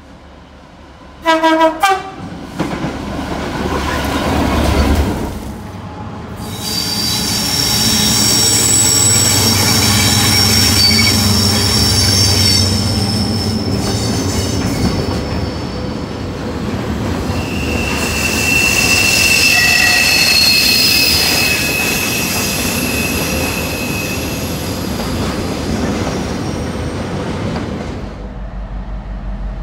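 A diesel freight locomotive sounds a brief two-note horn and runs past with its engine rising. Then a long freight train of box wagons rolls by, its wheels squealing high-pitched on the curve, with one strong sustained squeal tone in the second half.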